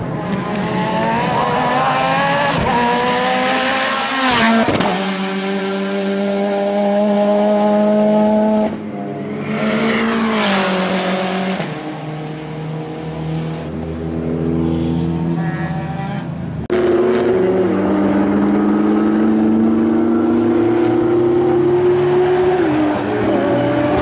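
Race cars at a time attack event on a circuit, accelerating hard with engine pitch climbing through the revs. Two cars go past loud at speed, about four and ten seconds in, their pitch dropping as they pass. Another engine note holds steady and slowly climbs near the end.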